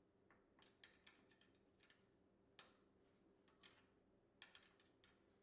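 Faint, irregular light clicks and taps, about a dozen over a few seconds, over a low steady hum.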